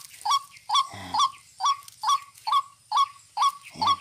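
Recorded tikling (Philippine rail) call played through a phone speaker as a lure: a short, hooked, pitched note repeated evenly, about two and a half calls a second.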